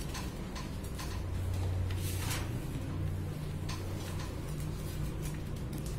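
Pen and paper being handled on a desk during signing: scattered light ticks and a brief rustle a little over two seconds in, over a steady low hum.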